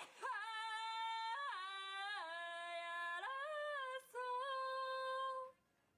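A woman humming a short wordless tune in a high voice, about five held notes joined by small slides, with a brief break near four seconds; it stops about five and a half seconds in.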